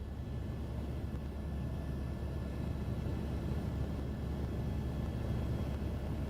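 Helicopter in flight, heard from inside the cabin: a steady low drone of the rotor and engine that does not change.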